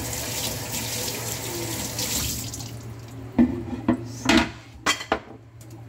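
Kitchen tap running water over hands and a wooden cutting board, turned off after about two and a half seconds. Then come a few sharp knocks and clatters as a bowl and the board are handled and set down.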